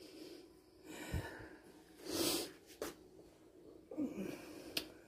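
A woman breathing audibly close to the microphone, with a louder breath about two seconds in, which she herself apologises for. Two brief sharp clicks come later.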